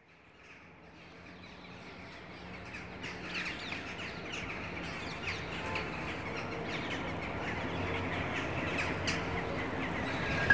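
Many birds chirping and calling, fading in from silence and growing steadily louder, over a faint low steady hum.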